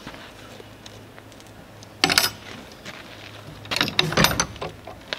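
Hinged wooden coop doors being swung shut: a sharp knock of the door closing against its pine frame about two seconds in, then a longer run of clicks and rattles from the door's metal latch hardware being worked just before four seconds.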